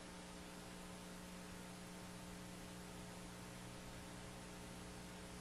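Faint steady electrical hum with a low hiss: background noise of the broadcast recording.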